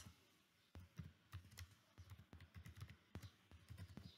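Computer keyboard being typed on as a short terminal command is entered: an uneven, quick run of faint key clicks, starting under a second in.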